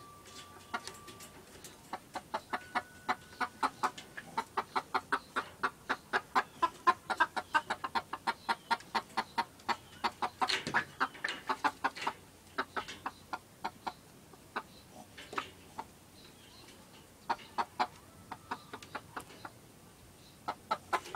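Chickens shut in a wire cage trap clucking rapidly, about five clucks a second, with one louder squawk about ten seconds in, then slower, scattered clucks that quicken again near the end. The quick, unbroken clucking is typical of hens alarmed by a dog right at the cage.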